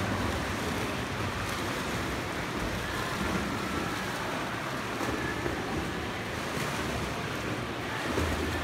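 Steady splashing of several children swimming laps in an indoor pool, their kicking and arm strokes churning the water.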